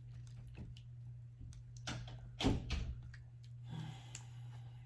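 Eating sounds: scattered small clicks and a louder soft knock about two and a half seconds in, over a steady low hum.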